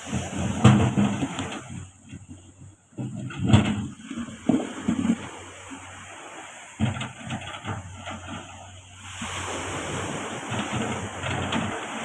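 A backhoe's engine runs with a steady low hum, over irregular heavy knocks and clatter as it works among large rocks. A rushing noise builds about nine seconds in.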